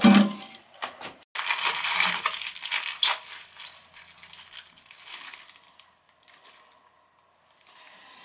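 Close crackling, crinkling rustle, with a brief cut-out about a second in, dying away past the middle.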